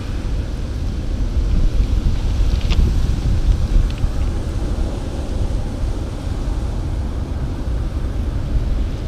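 Wind buffeting the microphone: a steady low rumble over a faint wash of water, with a couple of faint ticks about three and four seconds in.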